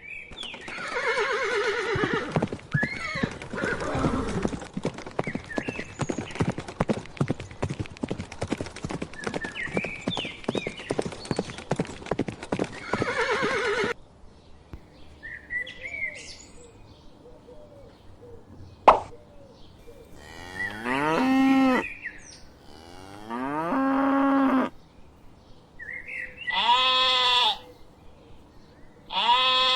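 Farm animal calls played one after another. First comes a long stretch of dense, rapidly pulsing calls lasting about fourteen seconds. After a sharp click, a series of separate wavering bleats follows, each about a second long.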